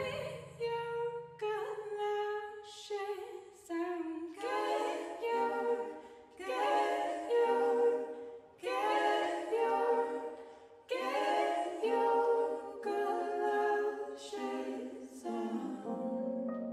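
A woman singing a slow melody with little or no accompaniment, in phrases of a second or two separated by short breaks.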